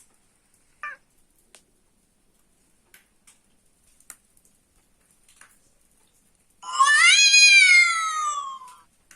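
Domestic cat meowing: a brief meow about a second in, then a loud, long meow near the end that rises and then falls in pitch.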